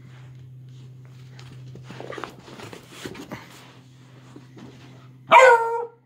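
A beagle puppy barks once, loudly, near the end, after a few seconds of quieter scuffling as it plays with a slipper. A steady low hum runs underneath.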